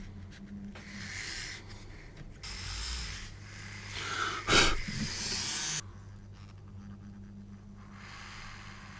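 Handheld rotary tool drilling out small air scoops in a polystyrene model kit's fuselage: a low steady motor hum with bursts of hissing as the bit cuts the plastic. A sharp click about four and a half seconds in is the loudest sound.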